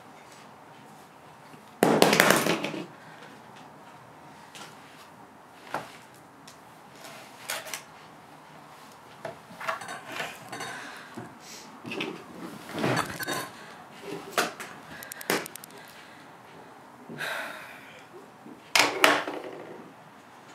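A hinged knee brace being handled and strapped onto a leg: a loud noisy burst about a second long about two seconds in and another near the end, with scattered clicks and knocks between.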